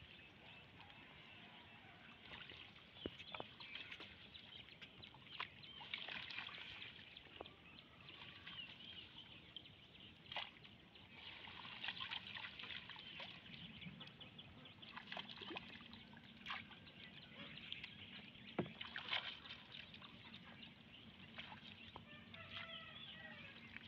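Faint water dripping and sloshing as a collapsible mesh fish trap (China net) full of small fish is hauled up and worked through shallow water, with scattered small splashes and clicks.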